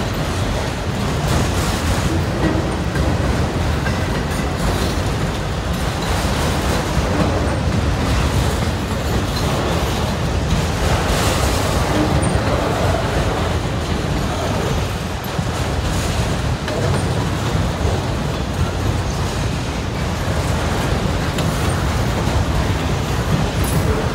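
A long CSX freight train of loaded autorack cars rolling past, with a steady noise of steel wheels on rail.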